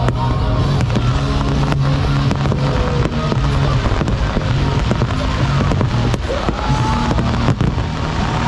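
Fireworks going off: many sharp bangs and crackles in quick succession, with music playing underneath.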